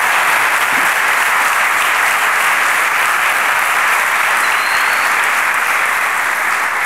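A large audience applauding, steady and unbroken.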